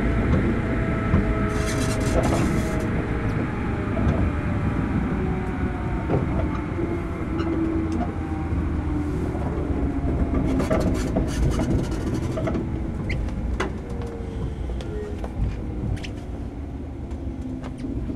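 Running sound of a JR Kyushu 103 series 1500-subseries electric train heard from inside motor car Moha 102-1510: the traction motor and gear whine falls slowly in pitch as the train slows, over a steady rumble of wheels on rail with scattered clicks.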